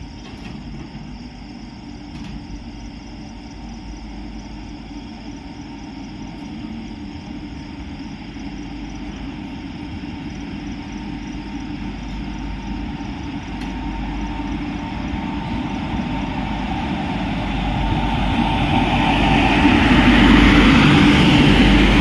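Rewa–Itwari Express train arriving at a station platform: the locomotive's low rumble grows steadily louder throughout, and the wheels on the rails build into a broad rush over the last few seconds as it draws alongside.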